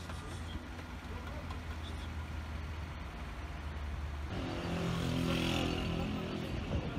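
Street traffic noise: a steady low rumble, then from about four seconds in a louder nearby motor vehicle engine running with a steady hum and some hiss.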